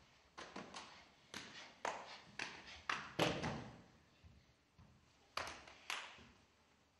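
Sharp percussive strikes on the stage floor by Kathak dancers, each ringing out in the large hall, about two a second for the first three seconds and the loudest just after three seconds in. After a pause come two more strikes near the end.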